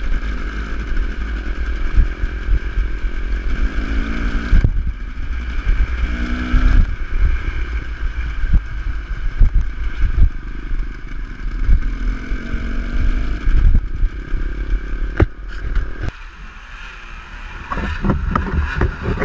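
Enduro dirt bike engine running and revving as it rides over a rough, rocky trail, with frequent knocks and rattles from the bumps. About three-quarters of the way through the engine sound drops away and the sound is quieter for a moment before picking up again.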